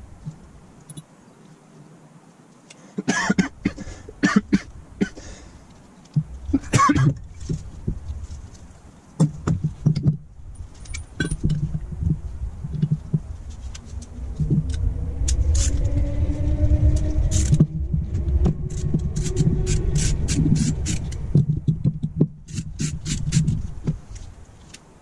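Small metal parts of a Zenith 30IZ carburettor clinking, tapping and scraping against each other and the metal bench as it is taken apart by hand, in scattered clicks and knocks. From about the middle a low rumble with a faint rising tone runs for several seconds.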